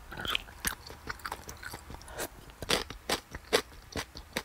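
Crunchy chewing and biting sounds: many irregular crisp crunches, the sound of crisp fried chicken being eaten.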